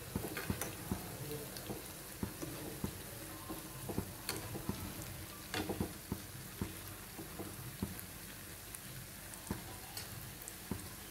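Jalebis deep-frying in hot oil: a steady sizzle with frequent small crackles and pops. A metal slotted spoon turns them in the pan, giving a few sharper clicks.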